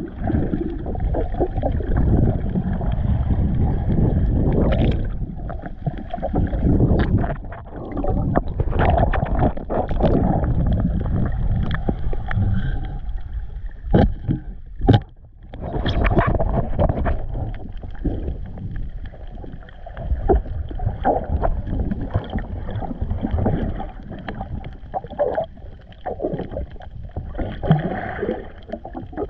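Muffled water sloshing and gurgling around a camera in the water, with scattered knocks and bumps, two sharper ones about halfway through.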